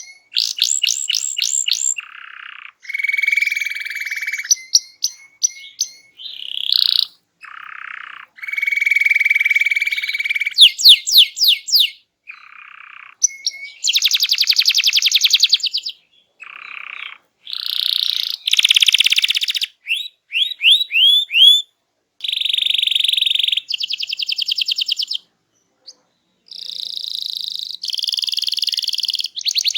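Domestic canary singing hard: a fast, varied song of rapid trills, buzzy rolls and quick sweeping whistles, delivered in phrases of one to three seconds with short breaks between them.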